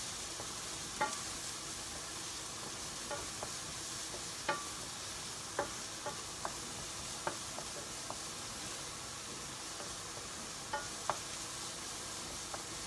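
Chopped garlic and onion sizzling in hot oil in a pan, with a steady hiss and the occasional sharp click of a spatula stirring against the pan.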